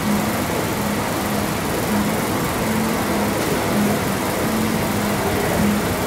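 Steady rushing background noise of machinery or road traffic, with a low hum that keeps cutting in and out.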